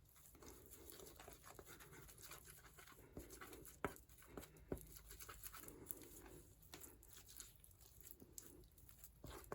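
Very faint scraping and a few light, sharp clicks as fiberglass filler is mixed with cream hardener.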